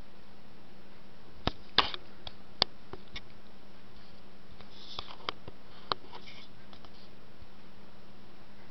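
Small dog sniffing and nosing at a piece of banana, in short sharp sniffs. They come in two clusters, one about a second and a half in and another about five seconds in, over a steady faint hum.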